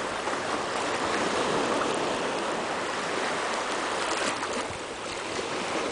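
Calm sea water lapping and sloshing close to the microphone, a steady wash of noise with a few small splashes.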